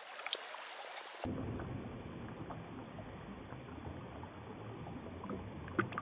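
Shallow stream water running, a steady low rush that becomes fuller and duller about a second in, with a couple of small clicks near the end.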